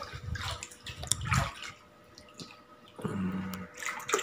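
Floodwater sloshing and splashing as someone wades through it, in irregular bursts that die down after about a second and a half, then pick up again near the end. A short low hum comes about three seconds in.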